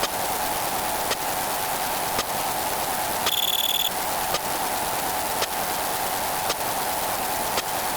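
One sound effect layered on itself a huge number of times, blurred into a steady rain-like hiss. A faint click comes about once a second, and a short high beep sounds about three seconds in.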